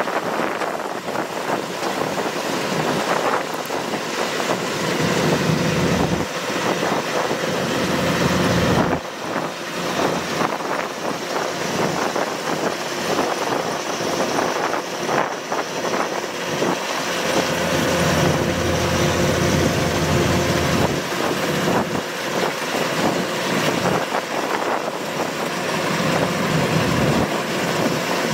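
Kubota DC-105X crawler rice combine harvester running steadily as it cuts and threshes, its diesel engine mixed with the rattle of the harvesting machinery.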